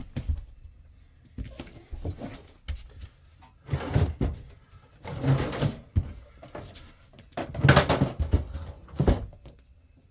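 RV propane heater unit being wiggled and slid out of its compartment: irregular knocks, thuds and scraping of metal, loudest in the middle and again near the end.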